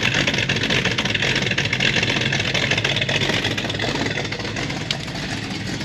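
A 1965 Shelby GT350H Mustang's 289 V8 running steadily at idle. The engine is freshly started and still cold, and it is running really rich.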